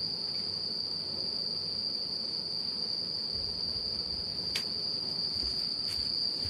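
Crickets trilling in the night air: one steady, unbroken high-pitched note, with a faint tap about four and a half seconds in.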